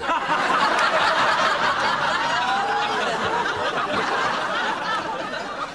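An audience laughing, many voices together, steady for several seconds.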